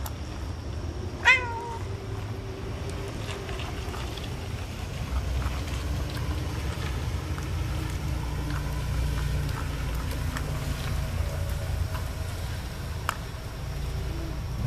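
A cat meows once, short and sharp, about a second in, over a steady low rumble.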